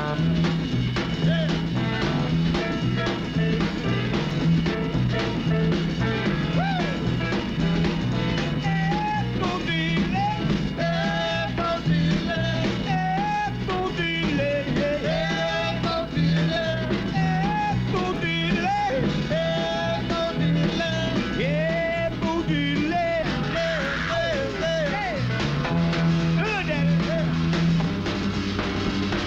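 Live rock and roll band playing: a walking bass line under a steady beat, with a singer's voice over it.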